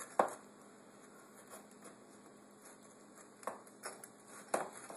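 A few sharp clicks and knocks as a thin Corelle bowl is handled while being greased with coconut oil by hand. The loudest comes just after the start and two more come in the last second and a half, with faint rubbing between.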